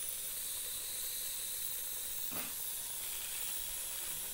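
Chicken pieces frying in oil in a steel pot, a steady high sizzle, with one short knock of the ladle against the pot a little past two seconds in.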